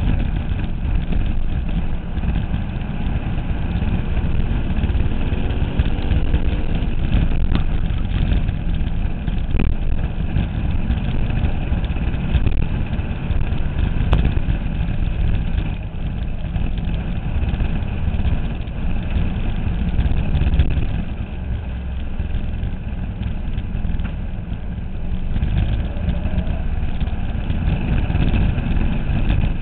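Dirt-track race car engine running hard under load, heard from a camera mounted on the car, with heavy rumble and vibration and an engine note that rises and falls through the laps.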